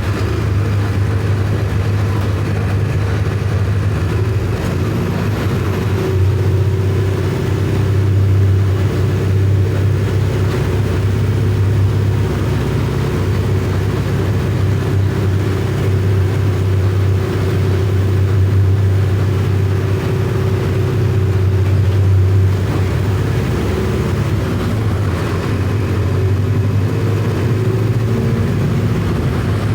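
Mercedes-Benz OF 1519 bus's four-cylinder electronic diesel engine running steadily under way, a deep, even note with only slight swells.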